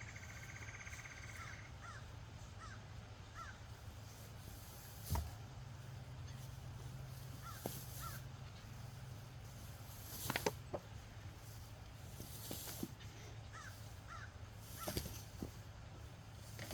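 Faint short bird calls now and then over a steady low hum, with a few sharp knocks about five, ten and fifteen seconds in, the ones around ten seconds the loudest.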